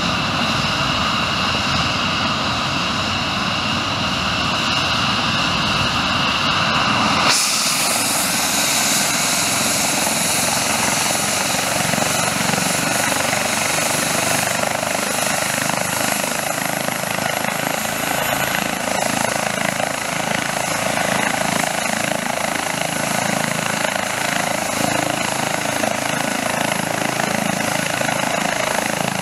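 Airbus H135 rescue helicopter running on the ground with its rotors turning, a steady turbine whine with rotor noise, before lift-off. The sound shifts abruptly about seven seconds in.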